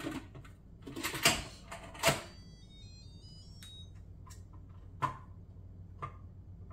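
Instant Pot electric pressure cooker lid twisted shut with a couple of sharp plastic clunks, followed by the cooker's short electronic chime, a quick run of beeping tones, as the lid locks into place. A few light clicks follow.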